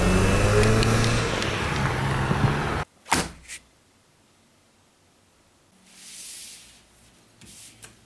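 A car engine running loudly with a steady low drone, cut off abruptly about three seconds in. Then come two sharp knocks on a wooden door, about half a second apart.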